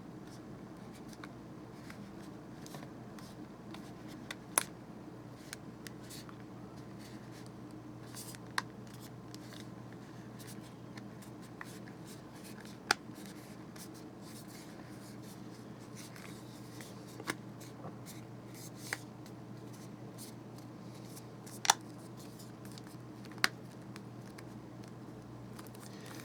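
Scattered sharp little clicks and taps, about seven standing out, as the iPhone 6 Plus screen assembly is handled and pressed back into its frame, over a steady low hum.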